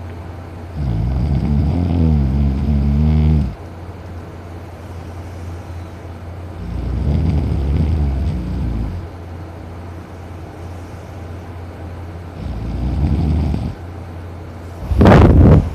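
A man in deep sleep snoring loudly: three long snores roughly five seconds apart, each one to three seconds long, the first the loudest. A short, sharp, louder burst comes near the end.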